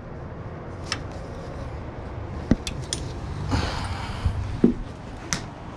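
Hand tools clicking and clinking on metal as bolts are run down by hand, a handful of separate sharp clicks with a short rustle about three and a half seconds in.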